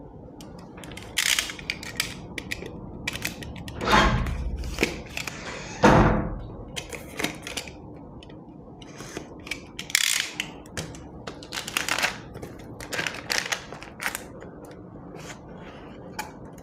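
Plastic shrink wrap on a phone box crackling and crinkling as it is slit with a box cutter and peeled off, in irregular clicks and rustles, with two louder handling knocks about four and six seconds in.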